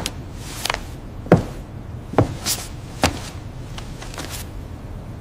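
A series of sharp knocks or thuds, three heavier ones evenly spaced a little under a second apart with lighter, hissier taps between, over a low steady rumble.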